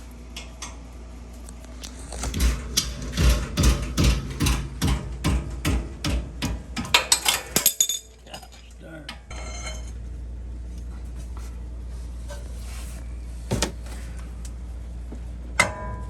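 Hand tools working a very tight bolt on a truck's front brake: a fast run of sharp metallic clicks and clanks for several seconds, then a steady low background noise broken by a couple of single sharp knocks near the end.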